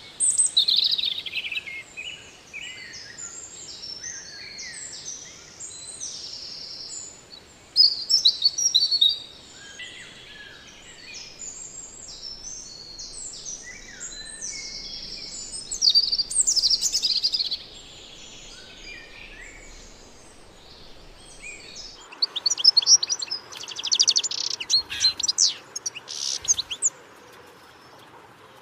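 Several birds chirping and calling, with short, high chirps overlapping one another. About three-quarters of the way through, a denser run of quick, sharp chirps takes over.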